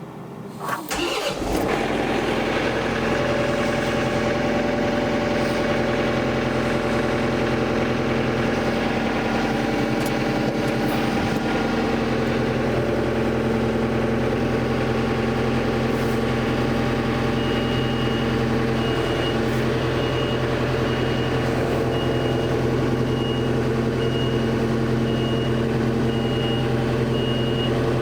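John Deere 485A backhoe engine cranking and catching about a second in, then running steadily at idle. From about two-thirds of the way through, a high electronic beep repeats roughly every three-quarters of a second over the engine.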